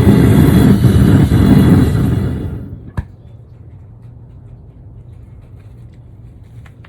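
Single-burner propane forge burner running with a loud, steady rushing roar. About two and a half seconds in the roar dies away within half a second, leaving a faint low hum, and a single sharp click follows.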